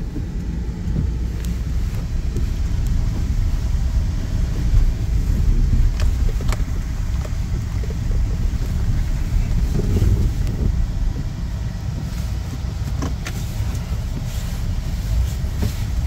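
Car heard from inside its cabin while driving: a steady low rumble of engine and road noise, with a few light clicks.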